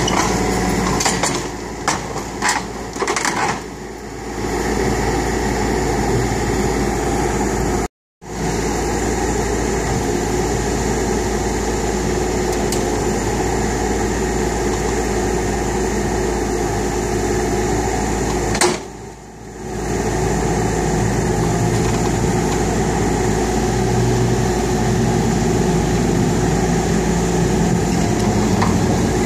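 Kubota U35 mini excavator's diesel engine running steadily under load as it works its hydraulics and tracks up a steel loading ramp. The sound drops out briefly about eight seconds in and dips twice more.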